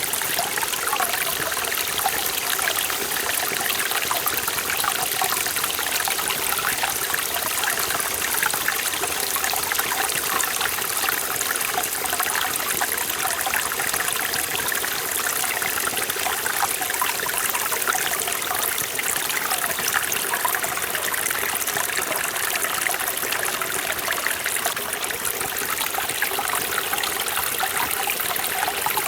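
Mountain stream in a forest valley, water running and splashing over rocks in a steady, unbroken rush.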